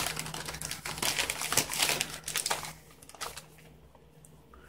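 Crinkling of a ration's foil-laminate food pouch and packaging being handled and set down, a run of quick crackles that stops about three seconds in.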